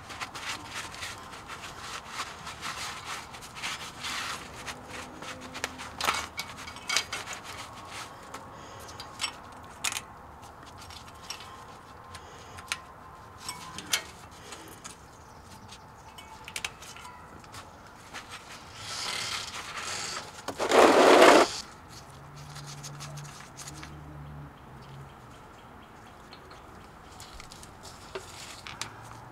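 A cloth shop towel rubbing and wiping over the rear differential cover of a Ford F-150, with scattered light clicks and knocks. About two-thirds of the way through comes a loud rushing noise lasting about two seconds.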